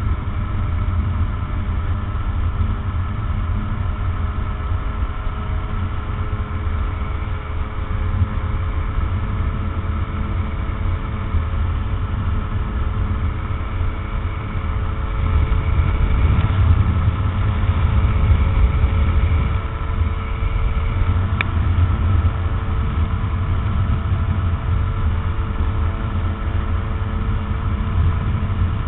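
Rotax 912 four-cylinder engine of an open ultralight trike running steadily in flight, with a heavy low rumble of wind over the microphone. It grows louder for a few seconds past the middle, then settles back.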